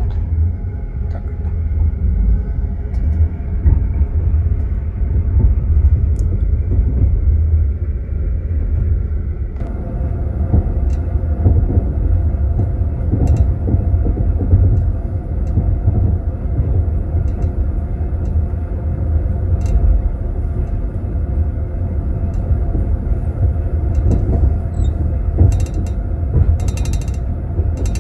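Passenger train carriage in motion, heard from inside the compartment: a steady low rumble with the clatter of wheels on the rails. The running noise grows brighter about a third of the way in. Small scattered clicks and rattles become dense near the end.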